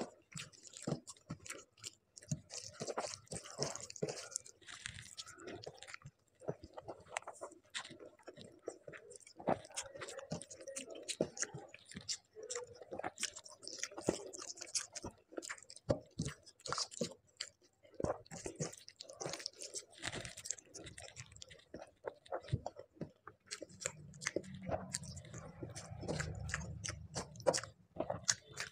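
Close-miked chewing of rice and fish curry, with many irregular wet mouth clicks and lip smacks. Fingers squelch through the rice on the plate. A low hum comes in for a few seconds near the end.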